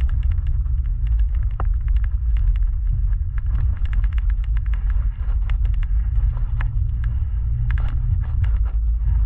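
Car driving along a dirt and gravel road, heard from inside the cabin: a steady low rumble of engine and tyres, with frequent small clicks and crackles.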